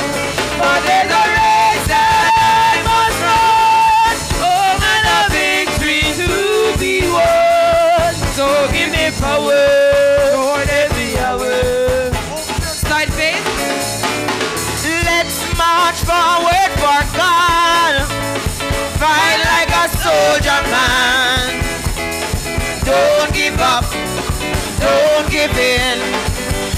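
A congregation singing a gospel chorus to live band accompaniment, the voices carrying the melody over a steady beat.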